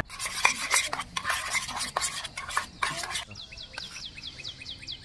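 A metal spoon scraping and clinking against a small metal camping pot and an open tuna can while mixing tuna mayo, for about three seconds. Then a bird chirps rapidly and steadily, about four high falling chirps a second.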